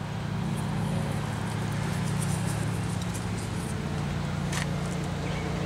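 Steady low machine hum, with faint small clicks and rubs from the greased clutch and pulley of a Sanden AC compressor being handled and turned by hand; one slightly sharper click comes near the end.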